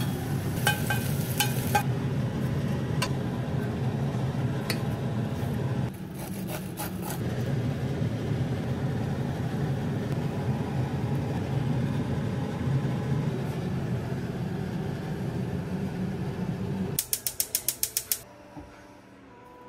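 Pan cooking on a gas range: a steady low rumble with the scrape and clicks of a metal spatula on the pan. Near the end a gas stove's piezo igniter ticks rapidly, about ten clicks in just over a second, lighting the burner.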